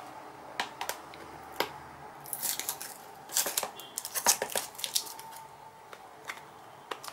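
Fingernails picking and scratching at a sticker seal on a small box to peel it off: scattered light clicks and a few short scratchy rasps.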